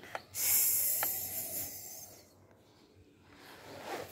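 Pencil scratching on a paper worksheet as a digit is written: a rasping hiss lasting about two seconds, then fainter scratching.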